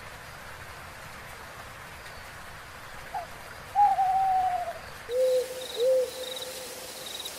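An owl hooting: a long, falling, wavering hoot about four seconds in, followed by two shorter, lower hoots.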